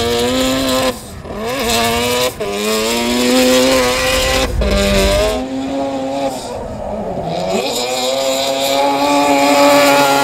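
Mazda 13B-REW twin-rotor rotary engine in a drifting FD RX-7, revs held high with short lifts off the throttle about three times in the first five seconds, and tyres squealing through the slide.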